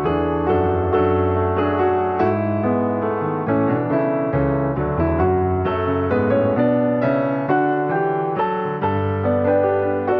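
Piano music: a steady stream of notes and chords.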